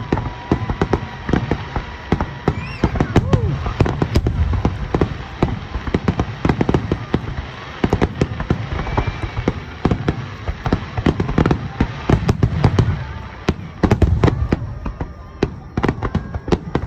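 Aerial fireworks shells bursting in a dense barrage: many sharp bangs in quick succession, overlapping with deep booming rumbles.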